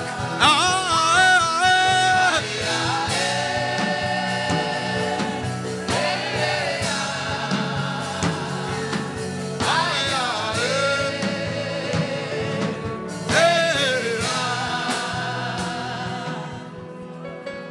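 Gospel worship singing over sustained backing music, with a new sung phrase every few seconds; it fades near the end.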